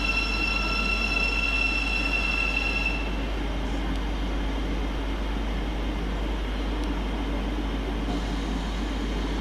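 Thameslink Class 700 electric multiple unit pulling out of the station: a steady rumble of the train, with a high whine that stops about three seconds in.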